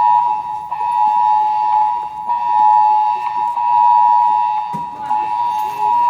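Building fire alarm sounding its alert tone: a loud, steady, high electronic tone of two close pitches.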